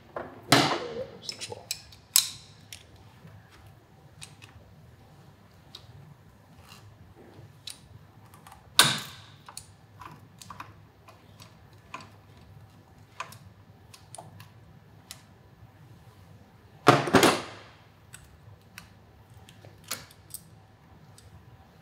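Hand tools working on the brake line banjo bolts: scattered metallic clicks and clinks, with a few louder clanks.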